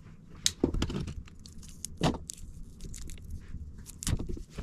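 Small hard objects being handled: scattered clicks and knocks with light rustling, the loudest knocks about two seconds in and again near the end.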